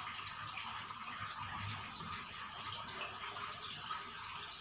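Steady trickling water, a continuous light hiss with faint small splashes and drips.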